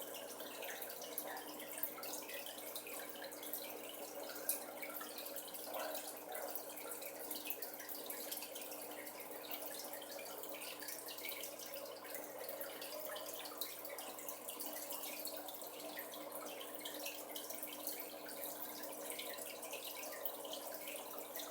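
Aquarium water running steadily with a faint pump hum and scattered small clicks and crackles; one sharper snap stands out about four and a half seconds in, the snap of a pistol shrimp in the live rock.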